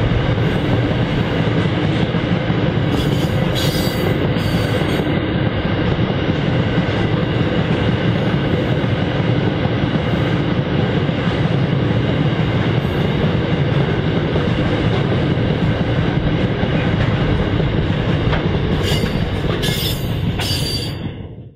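Loaded 3'6" narrow-gauge iron-ore hopper wagons rolling past with steady rumble and wheel squeal, with brief sharper squeals a few seconds in and again near the end. The sound fades out at the close.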